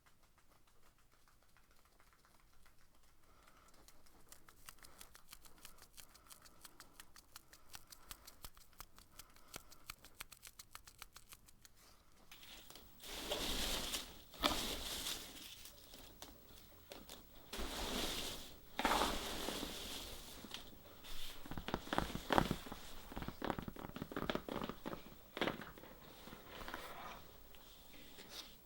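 Soft close-miked ASMR handling sounds: faint, fast, even ticking for about the first twelve seconds, then a run of louder crinkling, rustling bursts through the rest.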